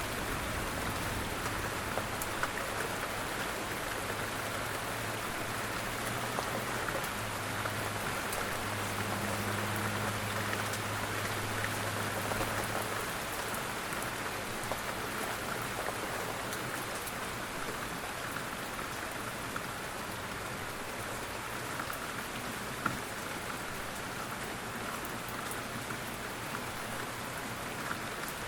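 Steady rain falling, an even hiss of drops on a surface. A low hum sits under it for several seconds in the middle.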